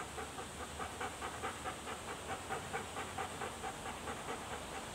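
Large white shaggy dog panting rapidly and steadily with its mouth open and tongue out, several quick breaths a second.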